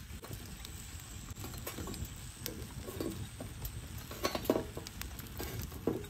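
Chestnuts roasting in a pan: irregular crackling and small clicks, with a few louder clicks and knocks about four seconds in and again near the end.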